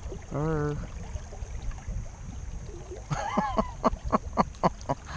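A man's voice: a short exclamation, then a quick run of laughter-like pulses, about four a second, over a steady low rumble of river water.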